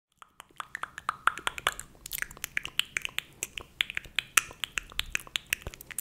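A rapid run of sharp finger snaps and clicks close to the microphone, starting a moment in and going on at about eight a second.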